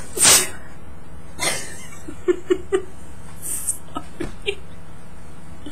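A woman sneezes sharply, the sneeze brought on by allergies, then gives a second breathy burst about a second later and breaks into three quick giggles, followed by a few soft breaths.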